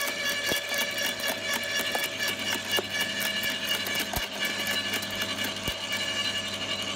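Makita UD2500 low-speed electric garden shredder running, its motor and gearing giving a steady hum and whine, with cracks and snaps as twigs are crushed and cut in the feed.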